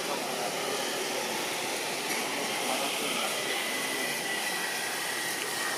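Steady hiss-like ambient noise with no distinct events, joined about two seconds in by a faint, thin high tone.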